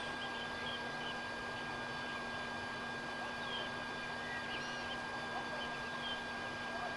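Scattered faint, high bird chirps over a steady background hiss and a constant hum.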